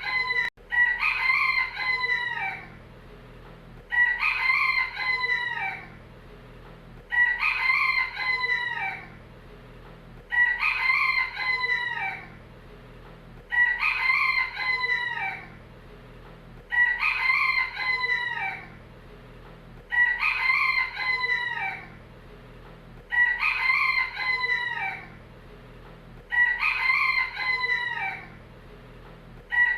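A rooster crowing over and over, the same cock-a-doodle-doo repeated about every three seconds, each crow lasting about two seconds. There is a brief dropout about half a second in.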